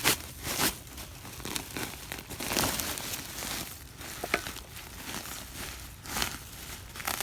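Grow bag of potatoes being tipped out and handled, a crinkling, tearing rustle with the soil spilling, broken by several sharp crackles.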